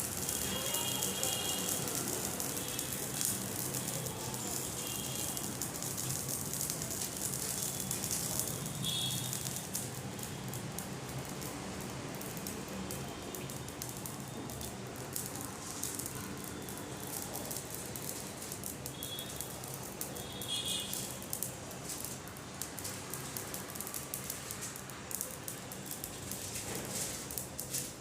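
Ajwain (carom) seeds crackling and sizzling as they are heated to give off smoke, a dense patter of tiny pops.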